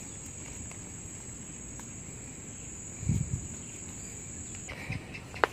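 An insect's steady high-pitched trill that cuts off suddenly near the end, with a dull thump about three seconds in.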